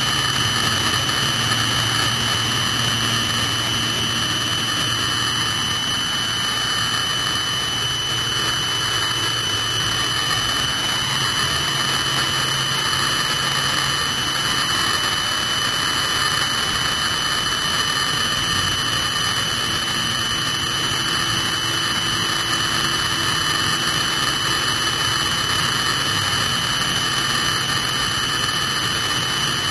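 Military helicopter's turbine engine running steadily while it stands on the ground, a continuous high whine over a rushing noise.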